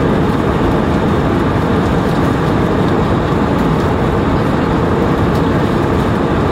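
Airbus A320 cabin noise in flight: a steady, loud rush of airflow and engine drone, heaviest in the low end, unchanging throughout.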